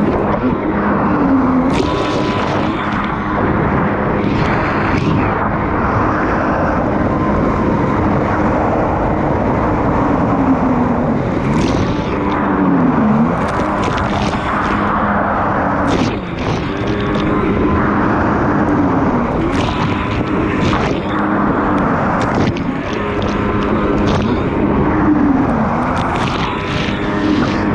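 Two-stroke stand-up jet ski engine running under throttle, its revs rising and falling over and over, with water spray hissing and splashing against the hull.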